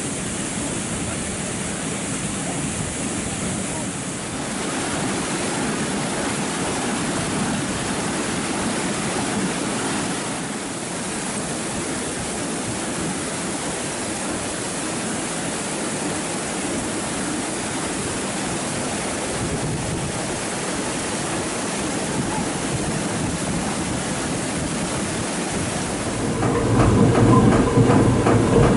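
Water rushing through a watermill's sluice and past its waterwheel, a steady rushing noise. Near the end it gives way to a louder rumble with an even, repeating clatter: the mill's wooden gear wheels turning.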